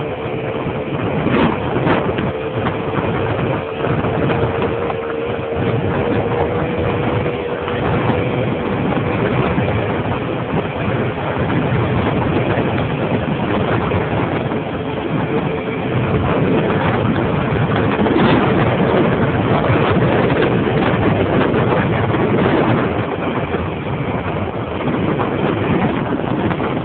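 Two-stroke Simson moped engine running steadily under way, its note held fairly even under a constant rushing noise.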